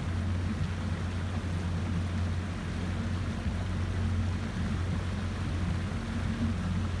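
Motorboat engine running steadily at a constant speed with a low, even hum, over a wash of wind and water noise.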